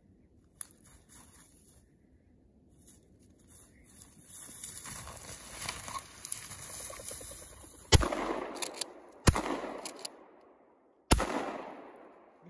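Three shotgun shots about a second and a half apart, each trailing off in a short echo through the woods, after a few seconds of rising rustling.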